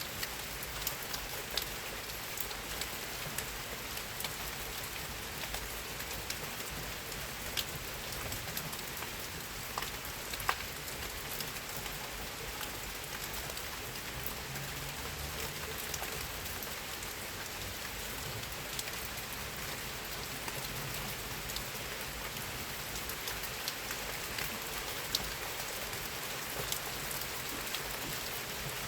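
Steady rain falling, with many individual drops landing as sharp little taps over a constant patter.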